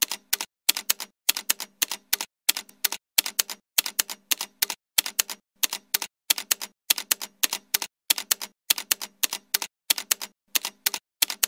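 Typewriter sound effect: quick runs of three or four key clicks, about two runs a second, with dead silence between.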